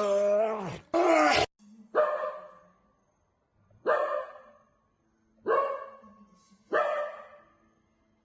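A dog barking: a drawn-out call at the start, then four single barks about a second and a half apart, each dying away.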